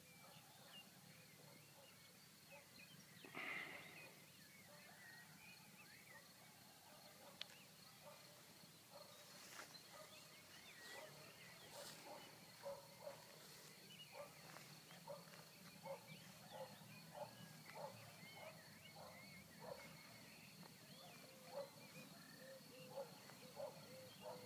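Near silence: faint outdoor background with scattered distant bird calls and a faint steady high tone. From about ten seconds in, a faint call repeats roughly once a second.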